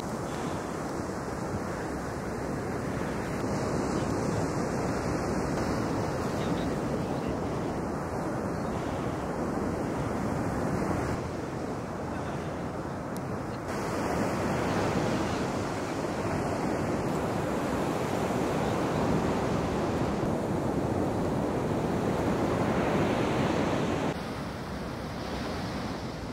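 Ocean surf breaking on a beach: a continuous wash of waves, louder and quieter in stretches.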